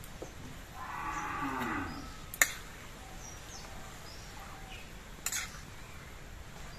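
A cow moos once, about a second long, near the start. A metal ladle clinks sharply twice against the metal kadai while the khichuri is stirred.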